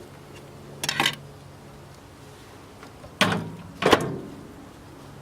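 Microwave oven door being worked and a CD put inside: a quick pair of clicks about a second in, then two loud clunks about three and four seconds in, over a low steady hum.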